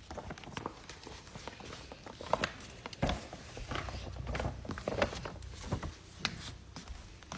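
Irregular soft clicks and taps as a dog moves about, with no steady rhythm.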